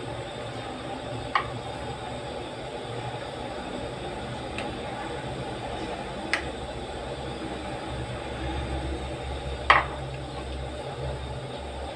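A metal spoon clinking sharply against a metal pan three times, the last clink the loudest, as coconut-milk soup with chicken simmers. A steady low rumble runs underneath.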